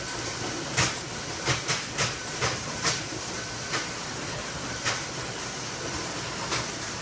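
Steady hiss and low hum of the automated fish-tagging machinery in a coded-wire-tagging trailer, broken by irregular sharp clicks every half second to second and a half.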